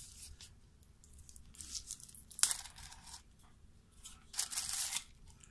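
Tissue paper rustling and crinkling as it is handled and unwrapped, in irregular short rustles, the loudest about two seconds in and again near the end.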